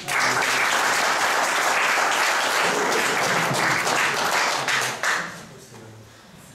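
Audience applauding. The applause starts at once, holds for about five seconds, then dies away.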